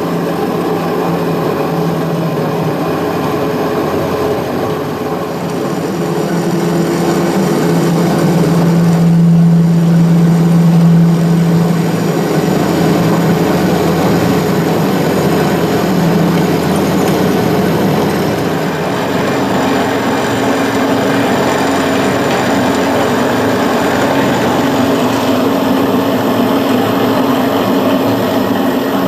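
Trennjaeger VCT400HA heavy-duty circular cold saw running and cutting through metal stock under coolant: a steady mechanical drone of motor, gearbox and blade with a low humming tone, loudest about a third of the way through.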